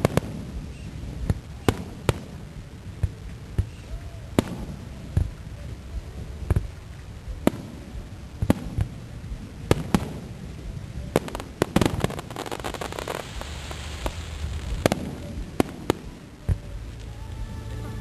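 Fireworks exploding: irregular sharp bangs every second or so, with a dense burst of crackling about two-thirds of the way through followed by a fading hiss.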